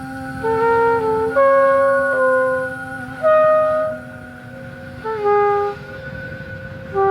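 Instrumental duo music: a brass melody in short phrases over a long held lower note, which stops about four seconds in.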